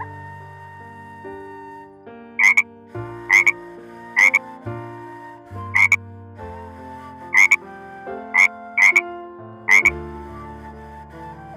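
Short, sharp animal calls repeated about eight times at uneven intervals, over steady background music.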